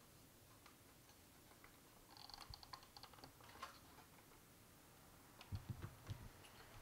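Faint small clicks and scrapes of fingers working at the wire clips on the sound module's terminals inside a hard plastic toy body, with a few soft knocks of the plastic shell near the end.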